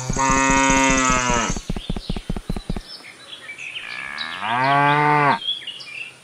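A cow mooing twice: a long moo that breaks off into a quick run of pulsing grunts, then a second moo rising in pitch about four seconds in. Faint bird chirps sound between the two moos.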